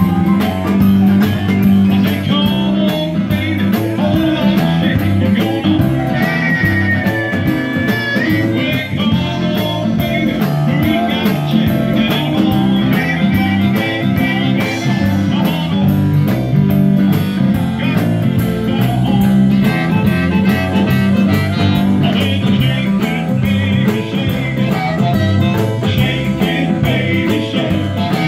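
Live blues band playing: electric guitar, bass and drums, with a harmonica blown into a microphone.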